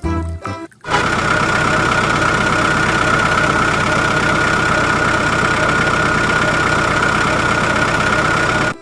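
A motor running steadily with a high whine, starting about a second in and cutting off just before the end; a snatch of music comes before it.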